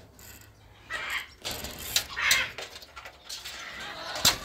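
A few short, harsh parrot squawks, followed near the end by a single sharp knock.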